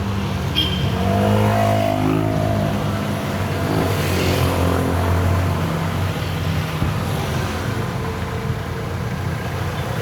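Road traffic heard from inside a small electric vehicle while riding: a nearby motor vehicle's engine revs with its pitch sliding up and down, then holds a steady low hum, over constant road and tyre noise.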